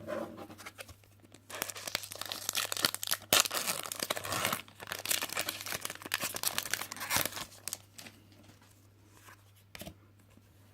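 A foil Pokémon trading card booster pack being torn open, its wrapper crackling and crinkling for about six seconds before stopping.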